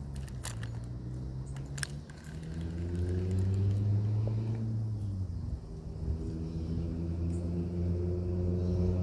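An engine running steadily, its pitch and loudness rising a couple of seconds in and dropping about five seconds in, then holding. Two sharp clicks come in the first two seconds.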